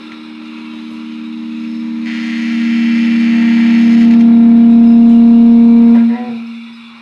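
Amplified guitar feedback: one steady low tone with overtones swelling over about four seconds to very loud, held, then cut off suddenly about six seconds in. A hiss rises above it for a couple of seconds midway.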